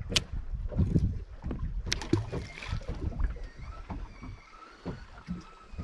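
Water slapping and lapping against the hull of a drifting fishing boat, in irregular low knocks, with a couple of sharp clicks near the start and about two seconds in.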